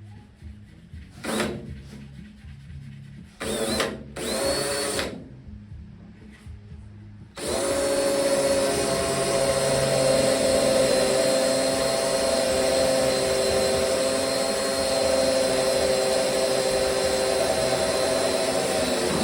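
Electric drill boring eighth-inch holes through sheet steel. A few short bursts come first, then the motor and bit run for a long steady stretch with a thin high whine, stopping near the end.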